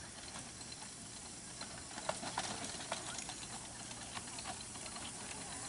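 Small 7¼-inch-gauge steam locomotive moving slowly over pointwork: light, irregular clicking and ticking over a faint steam hiss, growing busier about two seconds in.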